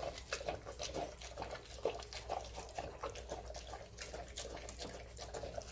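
A Rottweiler eating soft, wet food from a stainless steel bowl: a quick, irregular run of wet smacking and lapping, several a second.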